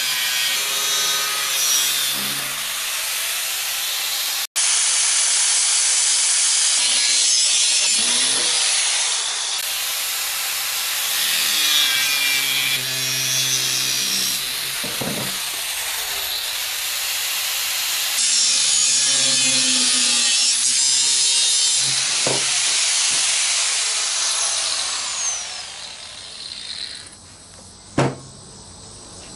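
Angle grinder cutting into the steel shell of a 20-pound propane tank, a steady grinding hiss with two abrupt cuts in it. Near the end the grinding dies away and a single sharp knock is heard.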